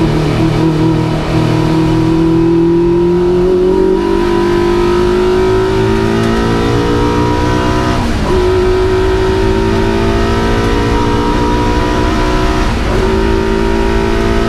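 Vauxhall Firenza special saloon race car's engine heard from inside the cockpit, pulling under load with its pitch climbing slowly, then dipping briefly twice, about eight and about thirteen seconds in.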